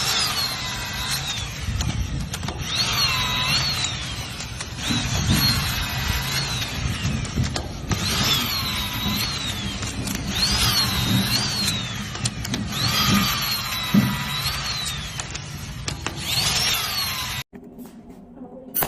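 A power tool's motor whining, its pitch dipping and climbing back about every two and a half seconds as if loaded and released. The sound cuts off suddenly near the end, leaving only quieter noise.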